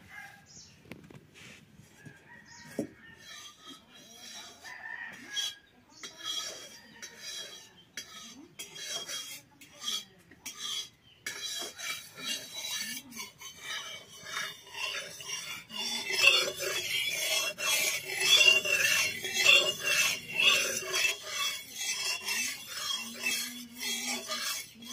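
A metal spatula scrapes and clinks against a large metal wok (kadai), with the clatter busiest in the second half. Chickens cluck and a rooster crows in the background.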